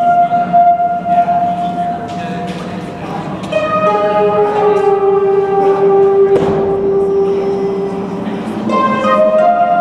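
Entrance music playing over the arena speakers: a slow melody of long held notes.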